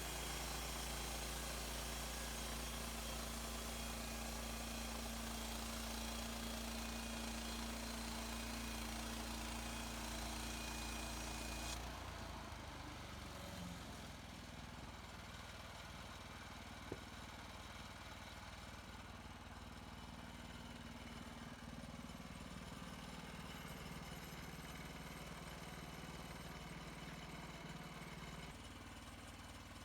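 Sawmill engine running steadily. About twelve seconds in, the broad hiss drops out and the engine runs on quieter and lower.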